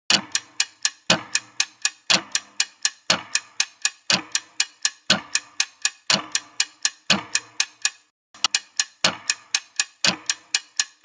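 Clock-like ticking sound effect, as used for a quiz countdown timer: sharp ticks about four a second, every fourth one heavier. The ticking breaks off briefly about eight seconds in, then resumes.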